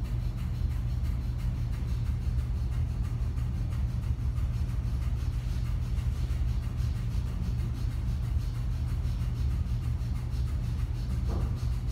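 Steady air-conditioner hum, with a quick, even series of short forced puffs of breath through the nose: Kapalbhati breathing, small exhalations driven by the abdomen.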